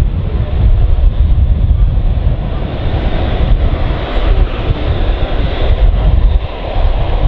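Bell Boeing V-22 Osprey tiltrotor flying slowly in helicopter mode, its two big proprotors and turboshaft engines giving a loud, deep, fluttering rotor thrum.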